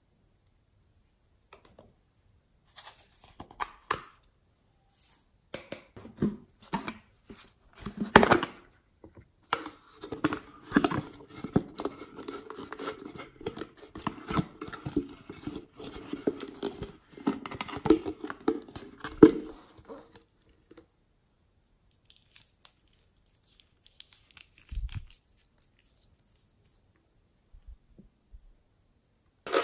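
Handling sounds of plastic containers over slime: scattered clicks and taps, then about ten seconds of steady crackling and rattling as a plastic bear-shaped bottle is tipped and shaken to pour glitter, ending in a few quieter taps and a soft thump.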